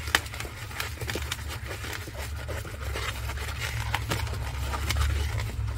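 Inflated latex 260 modelling balloon being twisted into bubbles by cloth-gloved hands: irregular rubbing and scratchy handling noise, many short scrapes and creaks, over a low rumble.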